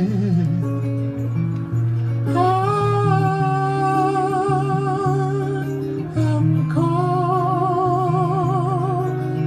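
Background music: a song with a voice holding long notes with vibrato over bass and guitar.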